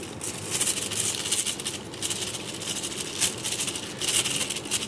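Thin plastic bag crinkling and rustling in irregular bursts as cornflour is shaken out of it.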